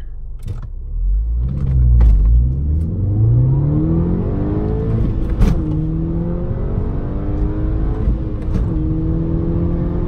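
2014 VW GTI's 2.0 TSI turbocharged four-cylinder accelerating hard from a standing start, heard from inside the cabin. The revs climb steadily, then fall sharply at an upshift about halfway through and again at a second upshift near the end.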